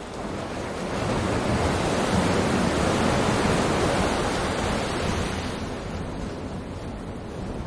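A load of rock and gravel tipped from a lorry, pouring out in a rushing, rattling rumble. It swells over the first couple of seconds, is heaviest in the middle, and eases off after about five seconds.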